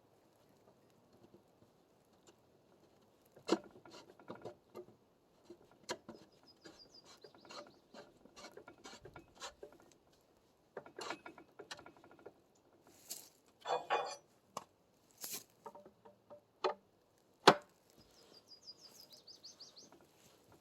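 A potato cannon being handled and readied: scattered clicks, knocks and scrapes. Twice there is a short ratcheting rattle, about a third of the way in and near the end.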